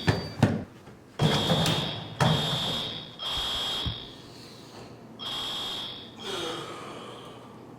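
Fire alarm horn sounding in repeated high-pitched pulses about a second long: three in a row, a pause, then more. A sharp knock comes about half a second in.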